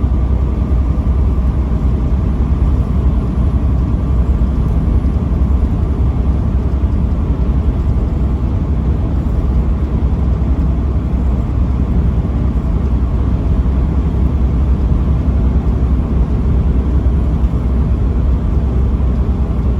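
Steady low rumble of a truck driving at an even speed, engine and road noise with no change through the stretch.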